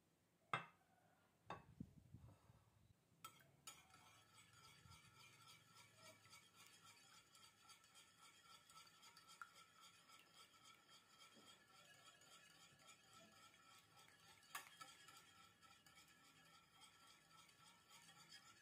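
A few sharp knocks near the start, then a wire whisk beating egg whites in a glass baking dish by hand: a fast, steady scraping and clinking of the wires against the glass from about four seconds in.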